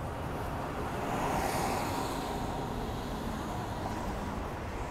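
Street traffic noise with a vehicle passing, swelling louder a second or two in and then easing back to a steady hum.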